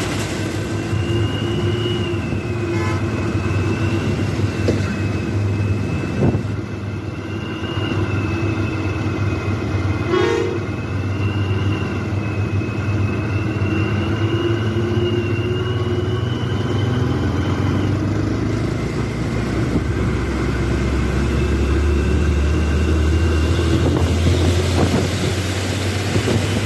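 A vehicle's engine and road noise while driving, with a steady, slightly wavering high whine over the first two-thirds. There is a brief sharp sound about ten seconds in, and the low engine rumble grows louder near the end.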